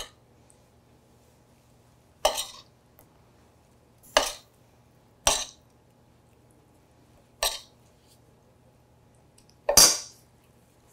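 Small metal spoon scraping and clinking against a stainless steel frying pan while scooping shrimp stuffing into calamari tubes: five short strokes about two seconds apart.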